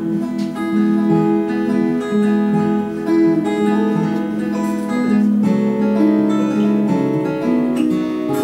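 Two acoustic guitars playing an instrumental interlude between sung verses of a folk song, strummed and picked chords with no voice.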